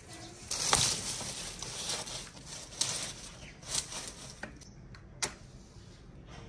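Dry twigs and straw rustling and crackling as they are handled and piled into a heap, with several sharp snaps, then a single sharp click near the end.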